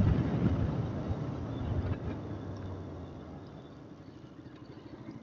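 Bajaj Pulsar RS200 single-cylinder motorcycle engine running while the bike rides along, with wind rushing on the microphone. The sound grows quieter over the first few seconds.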